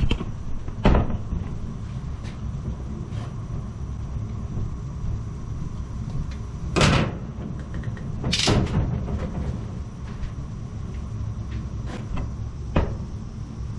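Weil-McLain EGH-125 gas steam boiler running with a steady low rumble, overlaid by a few sharp clunks and knocks, the two loudest in the middle.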